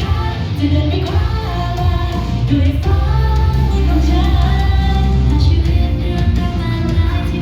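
Japanese idol pop song: a woman's voice singing the melody over a loud backing track with a heavy, steady bass.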